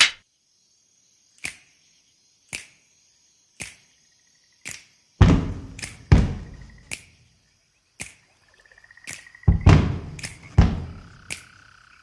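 Intro of a recorded song made of sound effects: sharp clicks about once a second, then from about five seconds in loud deep booming hits with short high electronic beeps between them.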